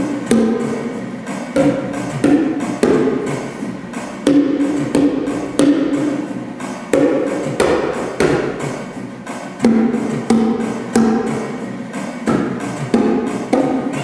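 Rhythmic body percussion: sharp claps and pats in an uneven repeating pattern, with steady sung notes held between the strikes that change pitch at each new beat.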